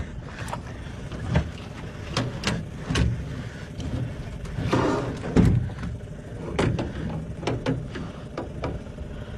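Scattered knocks and splashy water sounds from rod and landing-net handling against a small boat's hull while a hooked pike is worked alongside. The loudest thump comes about five and a half seconds in, over a steady low rumble.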